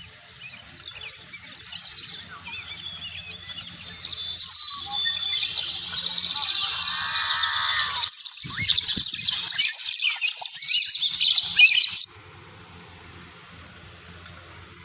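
Birdsong: a dense, loud run of high chirps and trills that cuts off abruptly about twelve seconds in.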